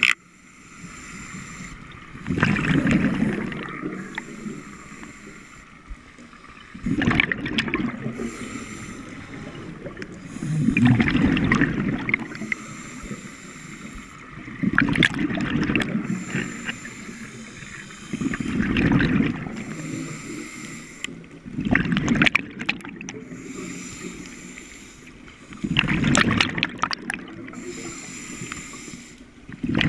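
Scuba diver breathing through a regulator underwater: a loud gurgling rush of exhaled bubbles about every four seconds, seven times, with the quieter hiss of the inhale between.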